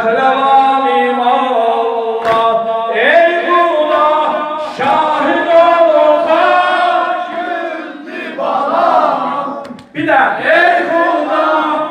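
Many men's voices chanting a Muharram mourning lament together for sineh-zani chest-beating, in long sung lines. The chant breaks off briefly near the end and then resumes.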